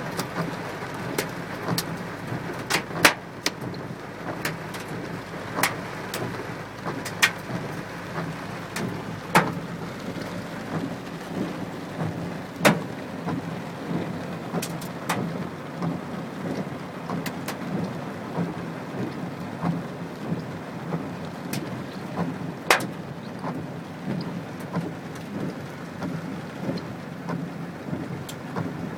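Heavy rain pelting a car, with sharp hailstone strikes cracking out every second or so, several of them much louder than the rest.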